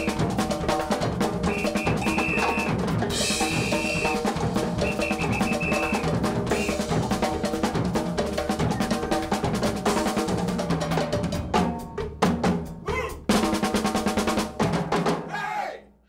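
Percussion ensemble of drum kit with congas, bongos and timbales playing a fast, dense groove. About eleven seconds in it breaks into a string of loud accented unison hits that close the piece, the last briefly ringing out before it cuts off.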